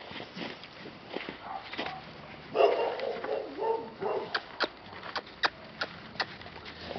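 American Staffordshire Terriers at play: a burst of short barks and yips about two and a half seconds in, followed by a run of sharp clicks.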